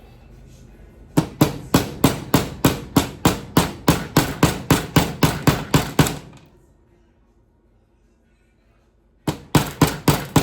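Hammer blows on metal in a fast, even run of about three or four strikes a second for some five seconds, then a second run near the end, struck to free a stuck, stripped screw.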